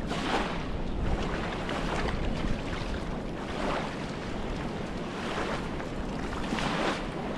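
Small waves washing in at the water's edge, a swell of hiss about every second and a half, over a low rumble of wind on the microphone.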